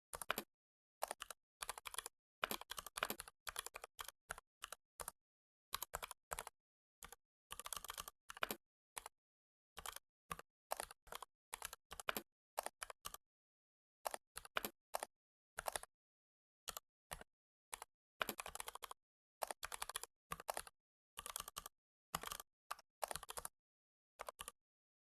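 Computer keyboard typing: quick runs of keystrokes broken by short pauses, with a longer pause of about a second and a half near the middle, and dead silence between the runs.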